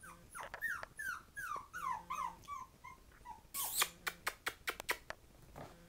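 Young Havanese puppy whimpering: a string of about ten short, high cries, each falling in pitch, about three a second. About three and a half seconds in comes a brief rustle, then a quick run of sharp clicks.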